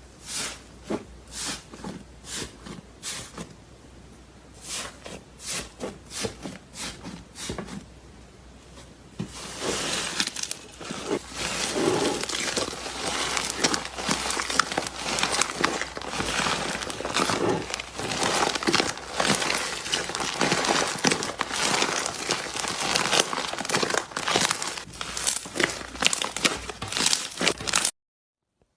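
Slime being squeezed and pressed by hand, crackling and crinkling: separate squishes about once or twice a second at first, then about nine seconds in a dense, louder run of crackling that cuts off abruptly near the end.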